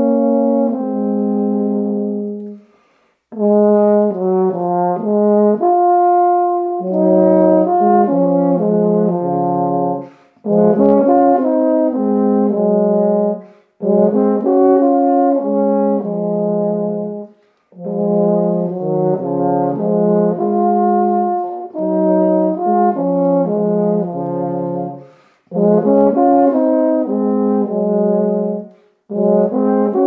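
Two tenor horns playing a folk tune as a duet, two parts moving together in phrases of a few seconds, with short breaks between them.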